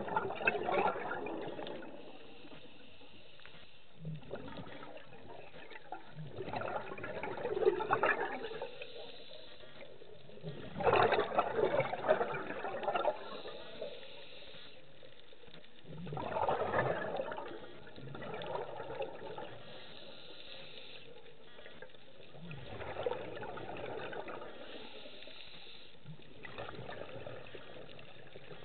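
Scuba divers' exhaled bubbles gushing out of the regulator underwater in bursts every few seconds, loudest about eleven to thirteen seconds in.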